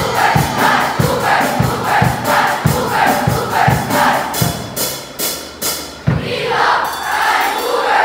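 A large crowd of students chanting a cheer in unison over a steady drum beat, about two to three beats a second. A few sharp crashes ring out about halfway through before the chant picks up again.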